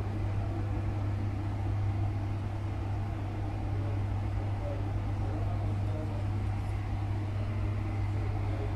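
Steady low hum with a faint even hiss.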